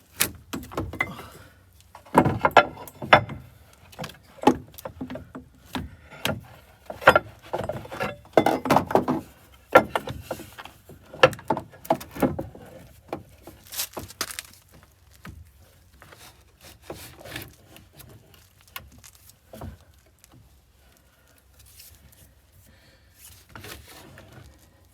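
Irregular metallic clicks, clanks and rattles of tools and hardware being handled during porta power bodywork on a bus door. The sounds come thick and fast through the first half, then thin out to occasional faint taps.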